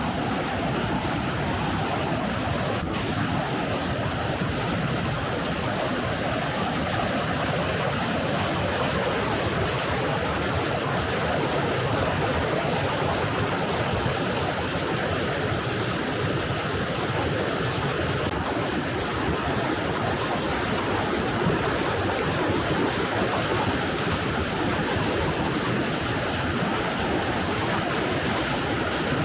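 Fast mountain river rushing over rocks: a steady, even roar of water that holds unchanged throughout.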